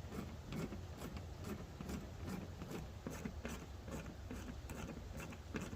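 Faint irregular clicks and taps, two or three a second, from a screwdriver working screws out of taillights, over a low steady hum.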